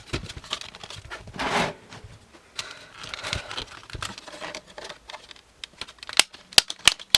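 Plastic router housing parts being handled and pried apart: scraping and rustling, then a run of sharp plastic clicks near the end as the snap-fit clips are worked.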